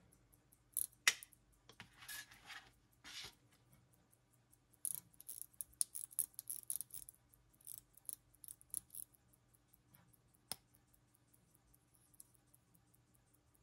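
Molnija 3602 pocket-watch movement being wound at the crown: two spells of rapid crisp ratchet clicking, about a second in and again about five seconds in, then a single sharp click. Under it the running balance keeps up a steady fast tick.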